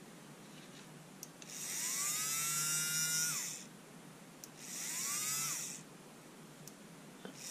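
Panasonic EY503 cordless screwdriver's small electric motor and gearbox running in three short bursts, each whine rising in pitch as the motor spins up, then falling away as it stops. The owner suspects a broken gear in the gearbox, which had been clicking and struggling to turn.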